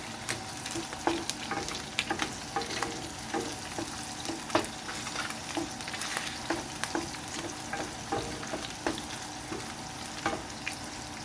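Garlic sizzling in hot oil in a frying pan while being stirred, the utensil tapping and scraping against the pan about once a second.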